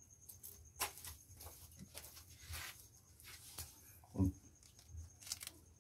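Faint rustling, scraping and soft clicks of hands working at plastic oyster mushroom grow bags during the harvest, with a short vocal sound about four seconds in.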